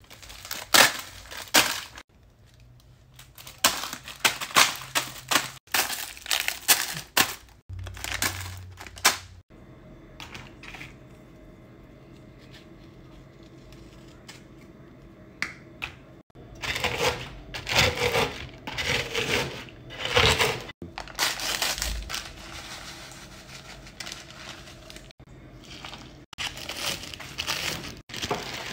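Crinkling plastic and crunching as cookies are crushed and mixed by hand, in a string of short clips that start and stop abruptly. A quieter, steadier stretch comes about a third of the way in.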